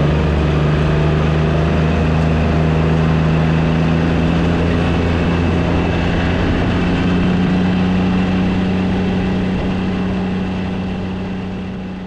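Zero-turn riding mower engine running steadily, rising slightly in pitch about halfway through and fading out near the end.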